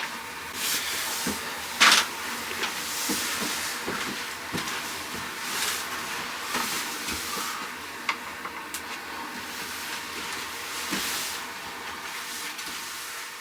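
An 80-litre batch of water at a full boil, steam hissing in swells with scattered pops and knocks from the boiling. A louder burst comes about two seconds in.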